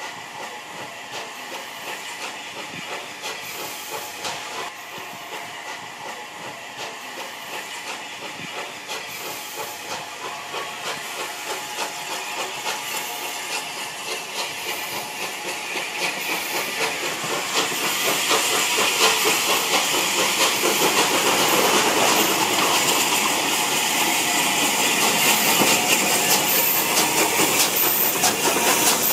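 Steam locomotive 34072 '257 Squadron', a Bulleid Battle of Britain class 4-6-2, drawing nearer and passing close. Steady steam hiss over a quick, regular beat, growing louder and loudest from just past halfway.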